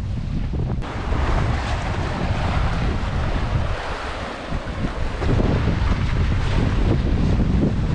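Sea waves surging and washing on a rocky shore, swelling in about a second in, easing briefly midway and building again, with wind buffeting the microphone in a low rumble throughout.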